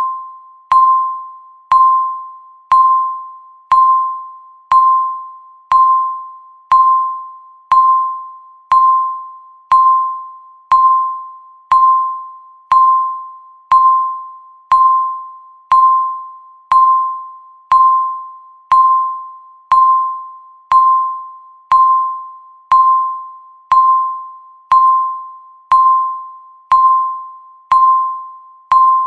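Countdown timer's tick sound: a short, bell-like electronic beep sounding once every second, evenly, each one ringing out and fading before the next.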